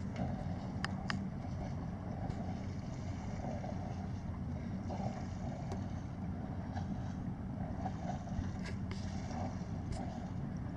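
Steady low rumble with a light hiss, and a few small clicks near the start and again around nine seconds in.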